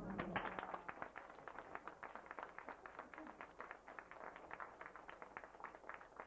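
Applause: many hands clapping in a fast, uneven patter that starts strong and thins out, fading away near the end.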